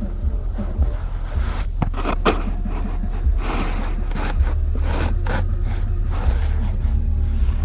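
Steady low rumble inside a minivan cabin, with irregular scraping and rustling close to the microphone as a hand pulls at the seatbelt webbing.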